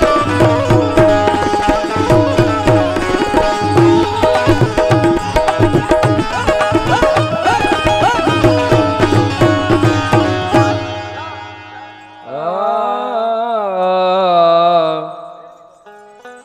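Qawwali ensemble playing: harmonium melody over a steady hand-drum rhythm. About ten seconds in the drumming stops, and a little later a solo voice sings one long wavering note over soft harmonium.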